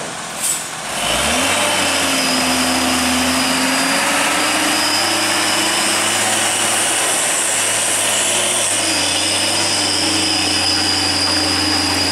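Hino tronton truck's diesel engine revving up about a second in, then running hard and steady as the heavily loaded truck pulls slowly through a hairpin bend.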